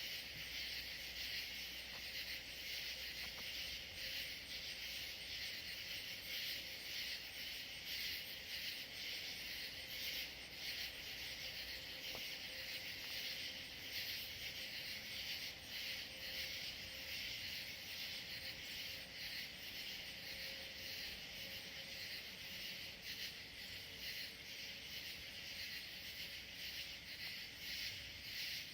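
Steady, high-pitched chorus of crickets and other insects, a dense pulsing trill that never lets up.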